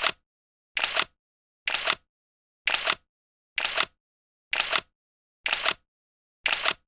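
Camera shutter sound effect, a short sharp click repeated about once a second with dead silence between, each click landing as a new photo appears.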